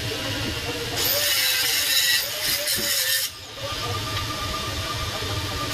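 TIG welding on stainless steel pipe: a steady hiss over a low hum. About a second in, a louder, harsher hiss starts, lasts about two seconds and cuts off suddenly.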